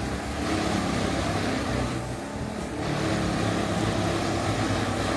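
A heavy machine's engine running steadily under load, with a dense mechanical din and a slight dip in level about two seconds in.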